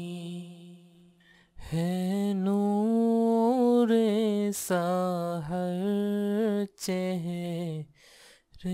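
A solo unaccompanied singing voice played back from a recorded vocal track. A phrase sung through autotune, reverb and delay fades away over the first second and a half. Then a dry, unprocessed take sings long held notes with short breaks between phrases, each note stopping sharply.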